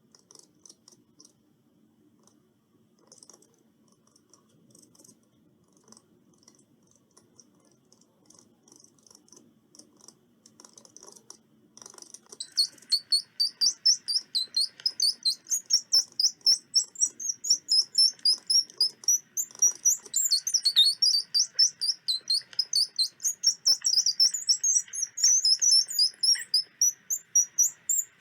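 Squirrel chattering: faint, scattered high chirps at first, then about twelve seconds in a loud, rapid run of high-pitched chirps, about four a second.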